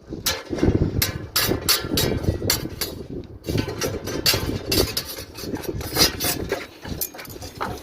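Building-site work noise: quick, irregular knocks and clatter of hand tools and materials, several strikes a second.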